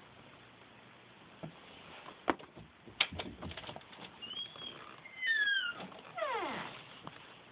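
A cat meowing three times, the calls falling in pitch and the last one the longest and sliding furthest down. Before them come a few light taps and knocks as a stuffed toy is batted about on the wooden floor under a door.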